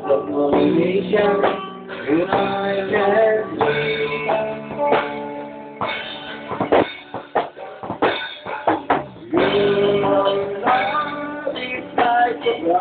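A live rock band playing in a small room: a drum kit with electric and acoustic guitars, the drums striking steadily under the guitar chords.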